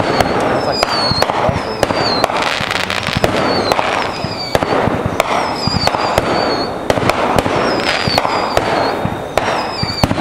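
Fireworks going off in a rapid, continuous barrage: many sharp bangs and pops over dense crackling, with short falling whistles recurring about once a second.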